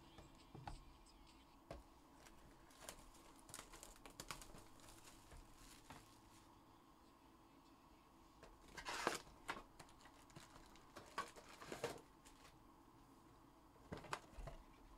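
Faint crinkling, tearing and rustling of plastic wrap and foil card packs as a box of trading cards is opened, with scattered light clicks. The loudest crinkles come about nine and twelve seconds in.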